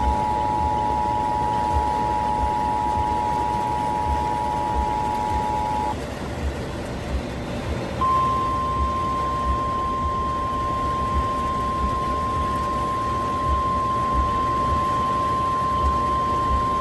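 Emergency Alert System two-tone attention signal, a harsh steady chord of two tones, cutting off about six seconds in. After a two-second pause, a single steady, slightly higher weather radio warning alarm tone sounds until the end, all over constant radio hiss.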